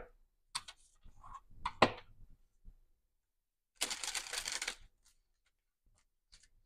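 Tarot cards being handled on a table: a few light clicks and taps, then about four seconds in a rustle of the cards lasting about a second.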